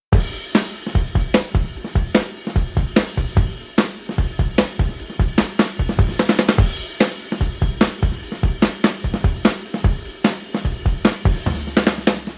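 Background music led by a drum kit: a steady beat of kick, snare and hi-hat hits.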